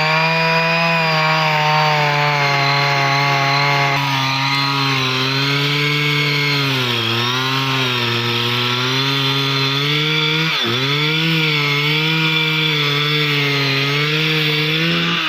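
Chainsaw running under load while cutting through a tree. Its pitch sags for a second or so about seven seconds in and dips sharply for a moment near eleven seconds as the chain bogs in the cut, then picks back up.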